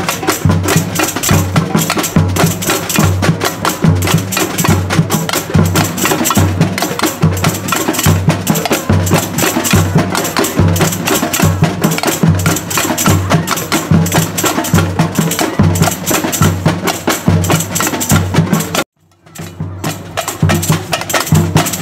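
A samba percussion band (batucada) playing: large surdo bass drums keep a steady low beat under snare drums and metal-jingle shakers. The sound cuts out for a split second near the end, then the drumming resumes.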